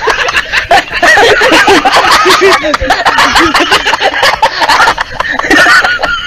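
Canned laughter: many people laughing together in overlapping bursts.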